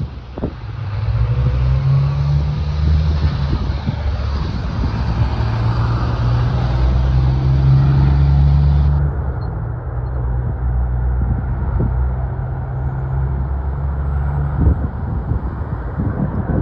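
Heavy B-double trucks' diesel engines running as they drive along the road, a deep engine drone that steps up in pitch a few times, over tyre and road noise.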